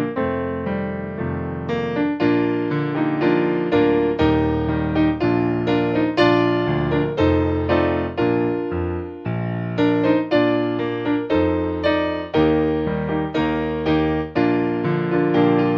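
Piano background music: notes and chords struck at an even pace over held bass notes.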